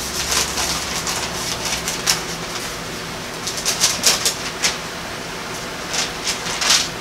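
Thin Bible pages being leafed through, short papery flicks and rustles coming in clusters, over a steady hiss.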